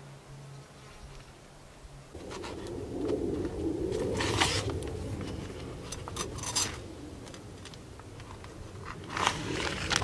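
Rustling and scraping, starting suddenly about two seconds in, with a few sharper scrapes around the middle and near the end.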